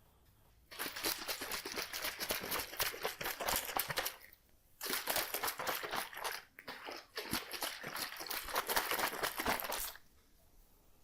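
Water bottle being shaken hard, the liquid sloshing and slapping inside in rapid strokes, in two long bouts with a short pause about four seconds in.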